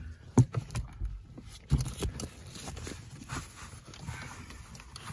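Irregular knocks and clicks from hands working in the wiring under a car's dashboard and handling the phone, the sharpest about half a second in.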